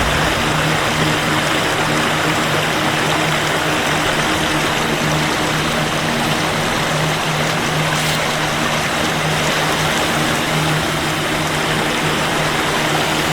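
Steady rush of creek water, an even hiss with no breaks.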